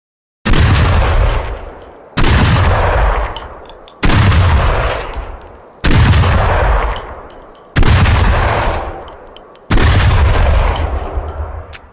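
Remington 870 pump-action police shotgun fired six times, about one shot every two seconds, each blast trailing off in a long echo that is cut short by the next shot.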